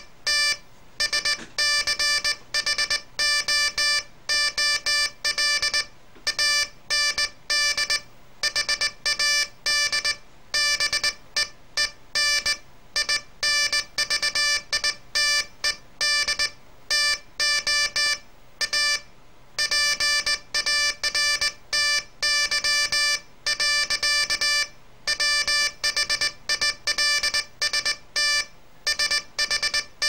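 Morse code sent by hand on a straight key, heard as a buzzy beep tone from a practice oscillator, switched on and off in dots and dashes without pause, with short gaps between letters and words.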